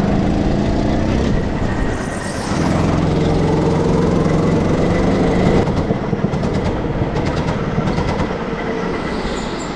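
Go-kart engine running under throttle as the kart is driven around the track, easing off briefly about two seconds in and picking up again. Light clicks and rattles come through in the second half.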